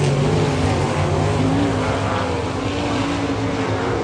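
Several winged sprint cars' V8 engines running at racing speed around a dirt oval, a loud continuous engine din whose notes waver up and down in pitch.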